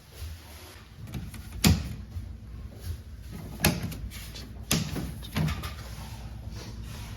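Four sharp knocks and clunks with lighter clicks between them, like hard plastic panels or covers being handled and set down.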